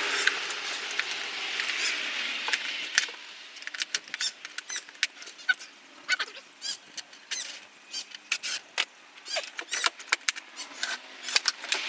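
Irregular sharp clicks, taps and short high squeaks of a sliding screen door's metal frame and spring-loaded wheels being worked into the door track. A steady hiss fades out over the first few seconds.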